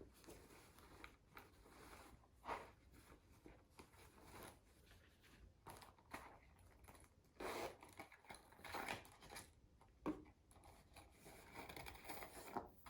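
Packaging being handled and unwrapped: intermittent rustling, crinkling and light scraping of paper and box, busiest about halfway through.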